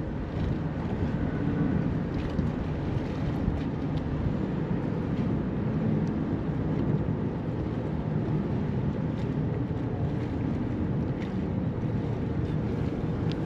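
Steady wind blowing across the microphone, a low, even noise with no distinct events.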